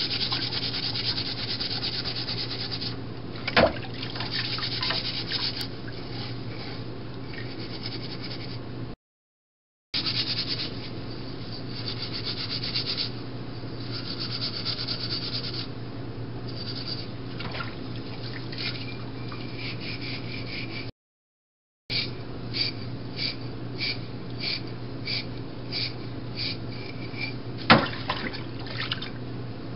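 Small moka pot parts being hand-washed in a stainless steel sink of soapy water: water sloshing and splashing with rubbing and scrubbing, and a couple of sharp knocks against the sink. Near the end the scrubbing turns into a run of short strokes about two a second. A steady low hum lies under it, and the sound cuts out briefly twice.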